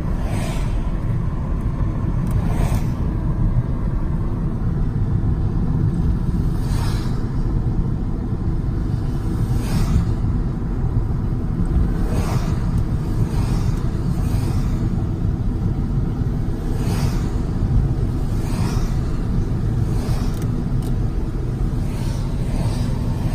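Car cabin road noise while driving on a wet road: a steady low rumble of tyres and engine. Short hisses come every one to three seconds at uneven spacing.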